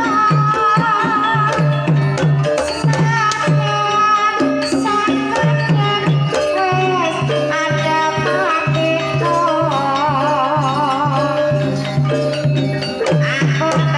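Banyumasan gamelan music for a tayub gending, driven by a steady pattern of low kendang drum strokes, with a high wavering melodic line with vibrato above it, in the manner of a sinden's singing.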